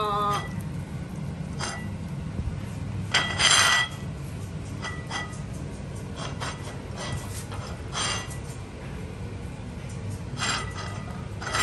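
Cutlery and dishes clinking at a meal: scattered light clinks and taps, the loudest a short ringing clink of a plate or glass about three seconds in, over a steady low hum.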